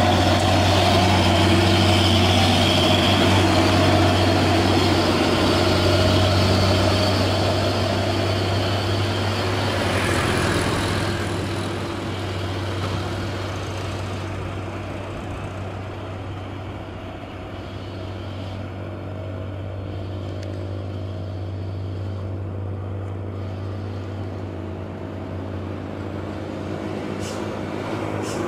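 Heavy Hino diesel truck engine pulling steadily under load up a climb as it passes close, loud at first and fading after about ten seconds into quieter traffic noise. Near the end another truck's engine grows louder as it approaches.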